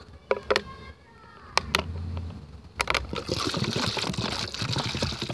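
Plastic bottles being handled, with a few sharp clicks in the first three seconds, then liquid pouring from one plastic bottle into another with a steady splashing rush.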